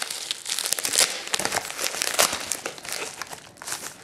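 Plastic mailer and bag packaging crinkling as it is handled and pulled open by hand, without scissors: a dense run of crackles, loudest about one second and two seconds in.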